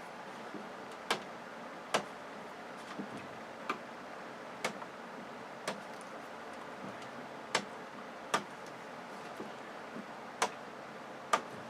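Wire cutters snipping through wires one after another, a short sharp snip every second or so, about a dozen in all.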